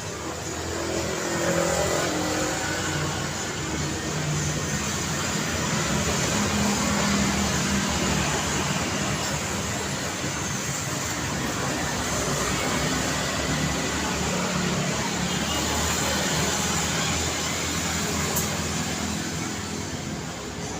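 Road traffic: cars passing with a steady wash of engine hum and tyre noise, swelling slightly as vehicles go by.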